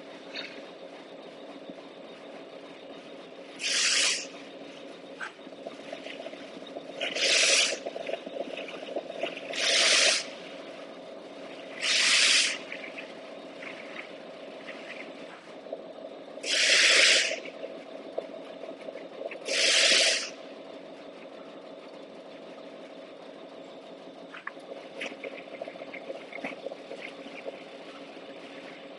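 Machinery humming steadily, with six short blasts of compressed-air hiss at uneven intervals, each under a second long, and a few faint clicks near the end.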